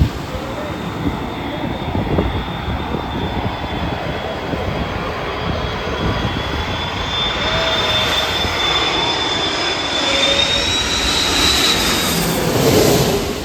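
Jet airliner's engines running, a broad rumble with a thin high fan whine on top, growing louder toward the end as the aircraft comes close; the whine rises a little in pitch near the end.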